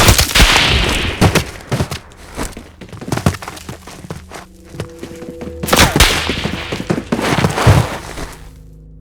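Cartoon sound effects: a rapid string of knocks and thuds, with a loud crash at the start and another about six seconds in. A held musical chord comes in about halfway and rings on to the end.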